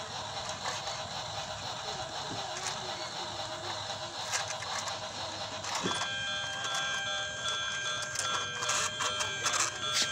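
Battery-powered toy train set: a small motor whirring with plastic gear noise. About six seconds in, a steady electronic tone of several notes starts up, with scattered clicks as the plastic cars and track are handled.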